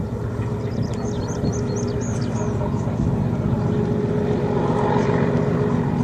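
A steam locomotive hauling the Jacobite train, heard as a steady low rumble with a faint hum of level tones. A small bird chirps a quick run of five or six high notes about a second in.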